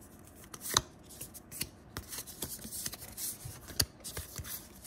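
Yu-Gi-Oh trading cards being slid and flipped through by hand, with a run of quick flicks and snaps of card stock. The sharpest snaps come about a second in and again near four seconds in.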